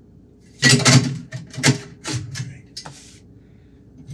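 Metal clattering and knocking in a stainless steel sink as a kitchen faucet and its pull-down sprayer hose are handled: a burst of clatter about half a second in, then several sharp separate clicks and knocks.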